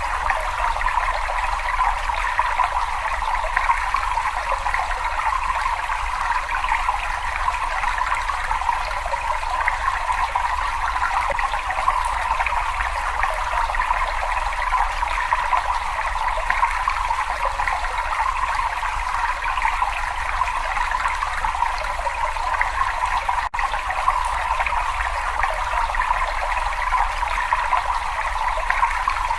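Continuous running water, a steady trickling rush that keeps an even level, with a momentary break about three-quarters of the way through.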